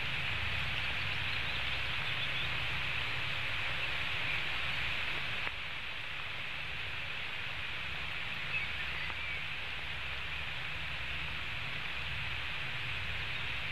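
Heavy rain falling steadily, an even hiss with a low rumble beneath it. The hiss drops slightly about five and a half seconds in.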